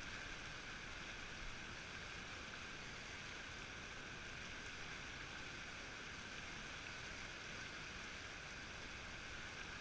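Fast river current rushing steadily, an even wash of water sound with no breaks.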